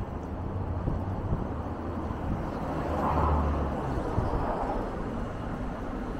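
Street ambience with a steady hum of traffic, and a vehicle passing that swells about three seconds in and then fades.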